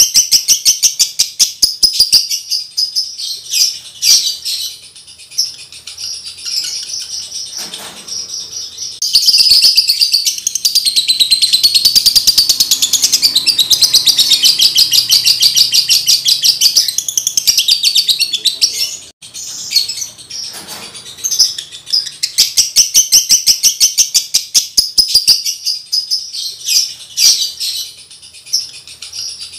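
Male lovebird in breeding condition singing: a rapid, high-pitched chatter of many chirps a second. It swells into a long unbroken run from about nine seconds in, breaks off sharply around nineteen seconds, then picks up again in quick bursts of chirps.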